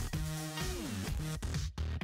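Electronic music with a beat of repeated drum hits; a synth note slides down in pitch about half a second in.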